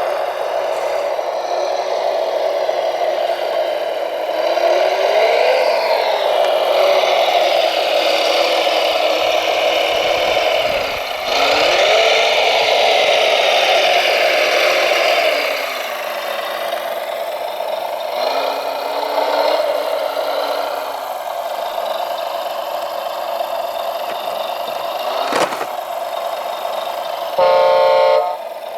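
Radio-controlled heavy truck and construction models running, their motors whining and gliding up and down in pitch as they speed up and slow down over a steady hum. A loud horn-like beep lasts about a second near the end.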